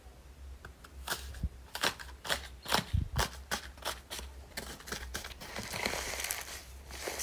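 Blue slime studded with foam beads being pressed and squished by hand, giving a series of sharp little clicks and pops, then a denser crackling as it is kneaded.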